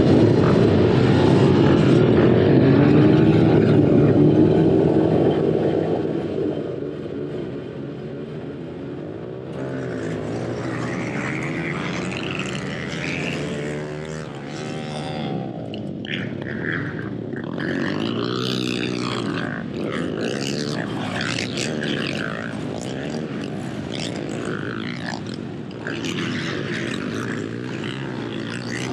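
Small dirt bike engines revving. For the first six seconds several engines drone together at high revs, loud. After that one engine revs up and down, its pitch rising and falling over and over as the bike is ridden hard around a dirt track.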